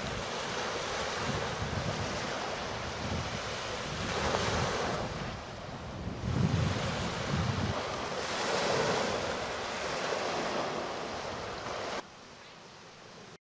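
Small waves washing in over a sandy shore, the surf swelling about four seconds in and again near nine seconds, with wind buffeting the microphone in a gust around six to seven seconds. About twelve seconds in it drops much quieter, then cuts off.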